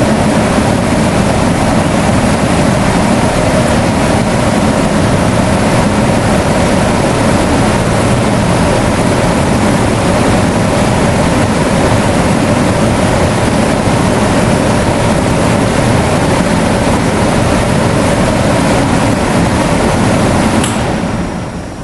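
Electric fan running loudly at a high speed setting with a steady rushing of air and motor hum. Near the end a click is heard and the fan noise drops sharply as the speed setting changes.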